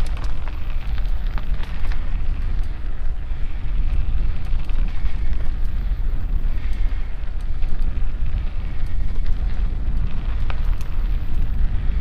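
Steady low rumble of wind on the microphone mixed with mountain bike tyres rolling over a dirt trail. There are a few light clicks and rattles from the bike.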